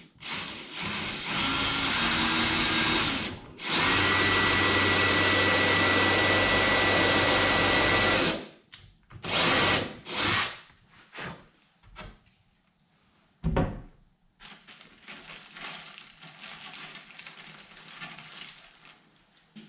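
Cordless drill boring through a mahogany spacer block into a wooden boat rail. It runs steadily for about three seconds, stops briefly, then runs steadily again for about four seconds, followed by two short bursts.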